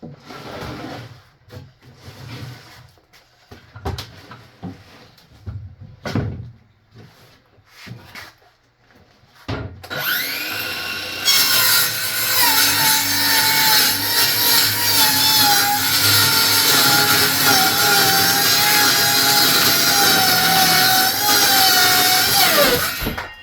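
Craftsman 20-volt cordless circular saw with a Diablo blade. After several seconds of light knocks and handling, the saw spins up with a rising whine at about the ten-second mark. It then cuts through a wooden board for about twelve seconds, its tone wavering as the blade bites, and winds down near the end.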